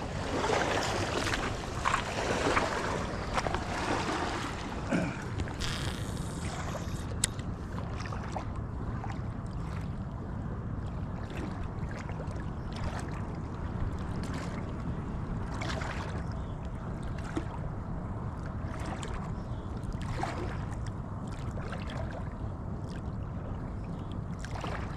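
Small fishing boat on the water: a steady low hum with water and wind noise, a little busier in the first several seconds, and a few faint ticks.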